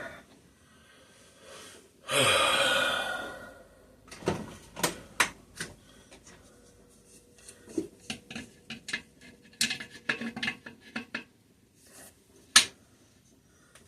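Small metal clinks and taps as a camshaft and its tappets are worked against each other and pried apart in a Kohler opposed-twin engine block. A loud rushing noise lasting about two seconds comes about two seconds in.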